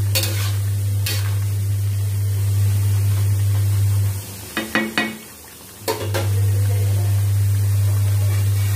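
A metal spatula scrapes and knocks against a steel kadhai as a cooking tomato mixture is stirred, a few separate strokes. Under it runs a loud, steady low hum that stops about four seconds in and comes back about six seconds in.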